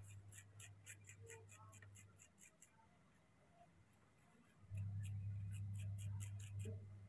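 A metal spoon scraping the flesh of a peeled pear in quick short strokes, about five a second, in two runs with a pause between, over a low steady hum.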